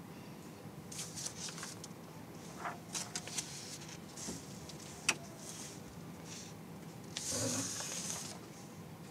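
A quiet lull: faint room tone with scattered small clicks and short rustles, a sharper click about five seconds in, and a brief breathy rustle about seven seconds in.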